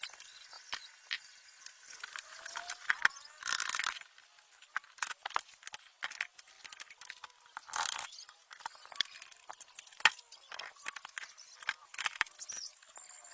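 Hand work on moped parts: irregular clicks, clinks and knocks of tools and small metal parts, with two short scraping or brushing noises, one about three and a half seconds in and one near eight seconds.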